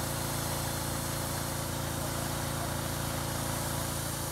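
Engine running steadily at a constant speed, with an even hiss over its hum.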